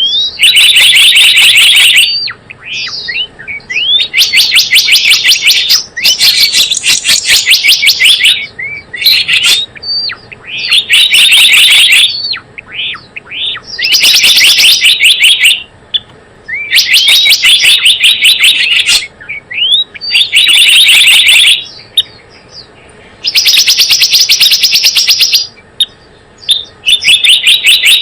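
Recorded lure call (pikat) of the gelatik bloong bird: loud bouts of rapid trilling, each lasting about one and a half to two seconds, alternating with short, rising high chirps.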